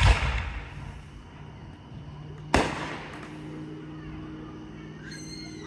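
Aerial firework shells going off: two loud booms about two and a half seconds apart, each followed by a rolling echo that fades away.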